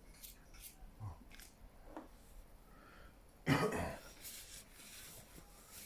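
One short, throaty cough from a person about three and a half seconds in, with a few faint clicks before it.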